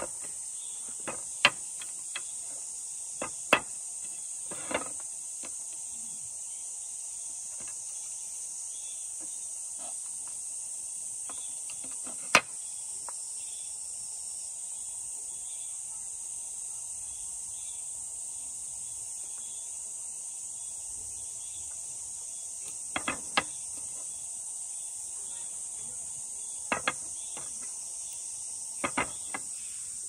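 Steady high-pitched insect drone, broken by scattered sharp knocks and clacks of tent-stake hammers, a steel Snow Peak peg hammer and a brass-headed, wooden-handled MSR stake hammer, being handled and set down on a slatted wooden table. The single loudest knock comes about twelve seconds in, and there are quick double knocks near the end.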